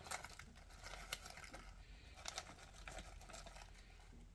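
Faint crinkling and light ticks of food packaging being handled as chopped onions are added to a crock pot of collard greens.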